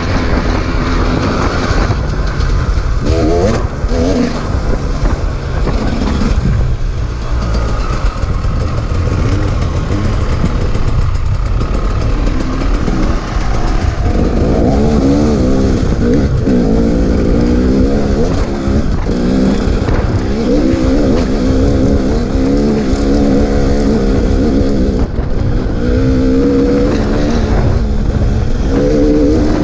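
KTM 300 two-stroke dirt bike engine riding a trail. The revs rise and fall over and over as the throttle is worked, most clearly from about halfway through, over a constant low rumble.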